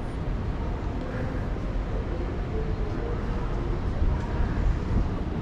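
Steady low rumble of outdoor city background noise, with a faint murmur of distant voices.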